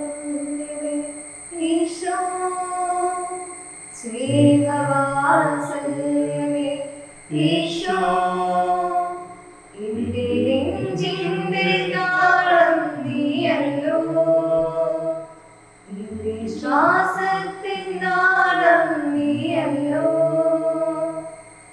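Choir singing a Malayalam hymn, led by women's voices, in phrases of a few seconds with short breaks between them. A faint steady high tone runs underneath.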